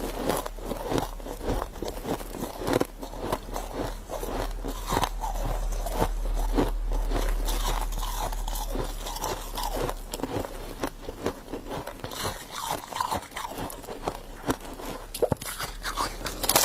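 Close-up crunching and chewing of a mouthful of humidifier frost, a quick, uneven run of soft icy crunches with hardly a pause.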